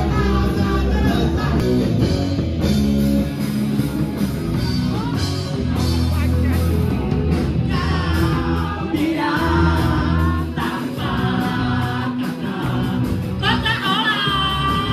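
Rock-style music with a male-sounding sung vocal line over bass and guitar; the voice comes in strongly about eight seconds in and again near the end.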